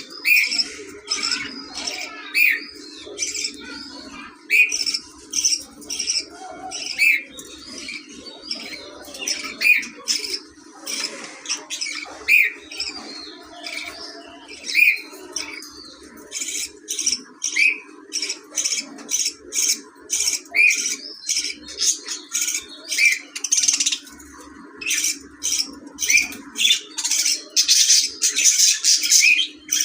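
Pet budgerigars chirping and squawking, short sharp calls several a second that come thicker toward the end. A faint steady low hum runs beneath them and stops near the end.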